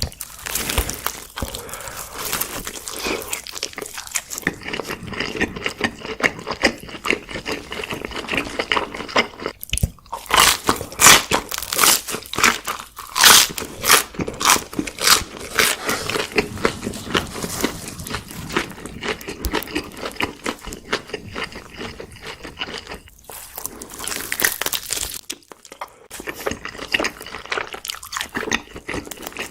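Close-miked biting and chewing of crunchy food, a dense run of crisp crackling crunches. The bites are loudest and thickest about ten to sixteen seconds in.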